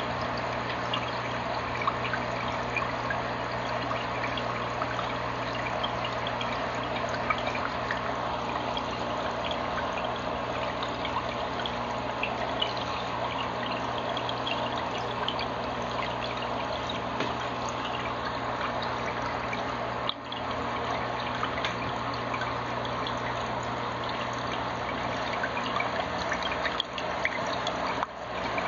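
Aquarium filter water trickling and splashing steadily into the tank, with a low steady hum underneath.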